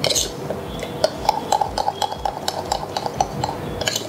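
Metal spoon stirring an oil and wheat-flour paste in a small brass bowl, scraping and clinking against the bowl's sides in a quick, even rhythm.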